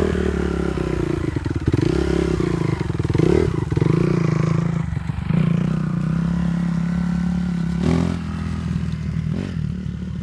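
Dirt bike engine running, its pitch rising and falling as it is revved, with clattering and two short knocks near the end.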